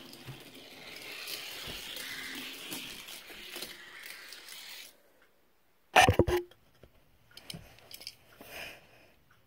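Rustling handling noise from a phone camera being carried about, then a short near-silent gap and a brief loud clatter of knocks about six seconds in, followed by faint small knocks.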